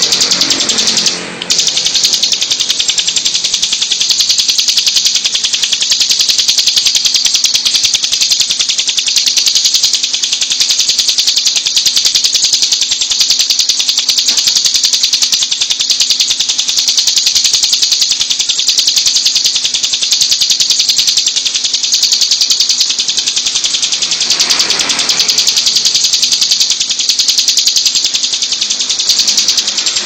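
Caged bar-winged prinia (ciblek) singing a fast, unbroken, high-pitched trill, with one short break about a second in.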